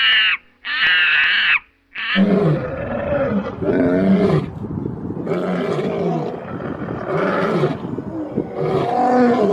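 Two short high-pitched calls, then from about two seconds in a large animal giving a run of deep, repeated, wavering calls about once a second.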